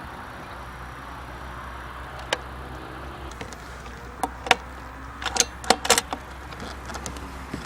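Sharp metallic clicks from handling an Air Arms S410 bullpup air rifle: a single click about two seconds in, then a quick cluster of clicks in the second half. Under them runs a steady low background rumble.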